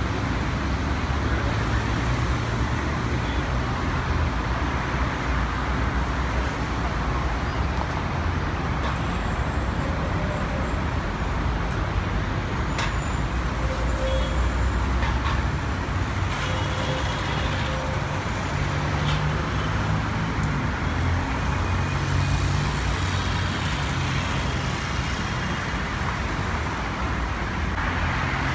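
Steady road-traffic noise: a constant low rumble of vehicles with a hiss over it, at an even level throughout.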